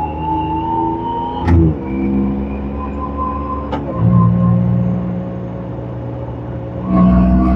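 Yamaha YXZ1000R's three-cylinder engine pulling at low speed through the Sport Shift paddle gearbox. There are two upshifts, about a second and a half in and near four seconds, each a sharp click followed by a drop in engine pitch. The engine gets louder again near the end.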